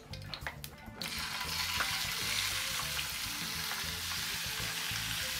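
Cubed raw chicken going into a frying pan of hot oil about a second in, setting off a steady sizzle of frying. A few light clicks come before it.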